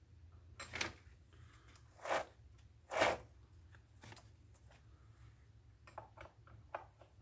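Metal scrapes and clicks from a chainsaw chain being tensioned on its bar with a chainsaw wrench: three louder scrapes about a second apart, then a few light ticks near the end, over a faint low hum.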